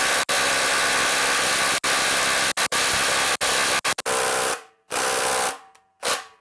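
Hilti SID 2-A12 12-volt impact driver hammering in reverse on a nut torqued to 30 foot-pounds, without breaking it loose. It runs continuously with a few split-second breaks, then about four and a half seconds in changes to short bursts with gaps between.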